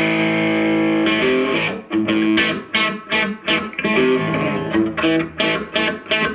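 Electric guitar played through a Mesa/Boogie Triple Rectifier tube amp head on its second channel in Raw mode, as the repaired amp is play-tested: one chord rings for about a second, then a run of short, choppy chords with brief gaps between them.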